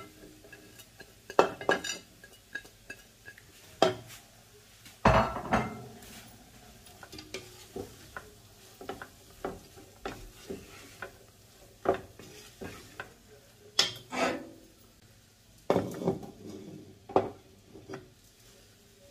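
A spatula stirring food in a wok, with sharp knocks and scrapes against the pan at irregular intervals and a faint sizzle from the low heat.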